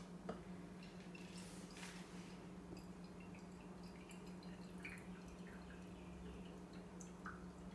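Faint dripping and trickling of coffee through an AeroPress's stainless steel filter into a glass cup as the plunger is pressed, with a light knock near the start over a steady low hum.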